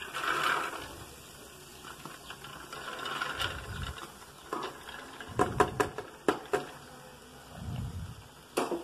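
Soaked chana dal (split chickpeas) pouring from a steel bowl into a pressure cooker of hot masala, a pattering rattle. In the middle comes a quick run of sharp metal clinks, with another near the end.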